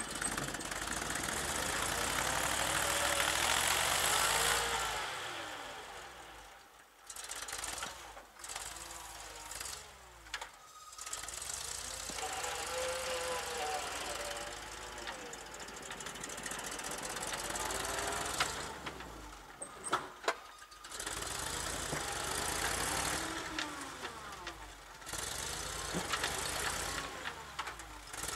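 GMC C7000 dump truck revving in repeated pushes, its engine note rising and falling each time, as it spins its tires and rocks back and forth: it is stuck in deep snow for want of tire chains.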